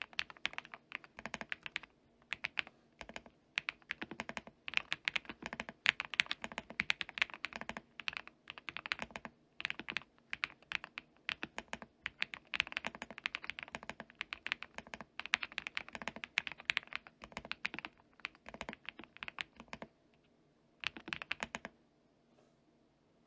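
Typing on a QK65 mechanical keyboard with an aluminium plate, lubed switches and Cherry PBT keycaps, dampened with case, PCB and PE foam. It is fast continuous typing, many keystrokes a second, breaking off about twenty seconds in, then one short burst of keystrokes a second later.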